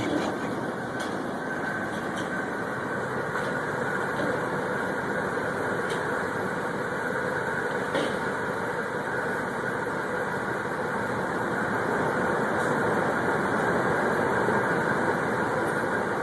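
Ford truck engine idling steadily. The engine has a head gasket sealed with Blue Devil and is running for a block test for combustion gases in the coolant.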